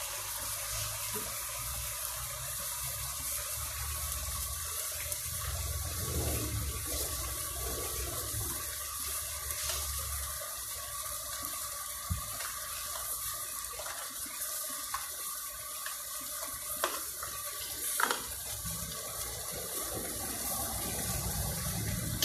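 Jackfruit and coconut milk cooking in a wok on a gas stove, a steady hiss with a few light clicks.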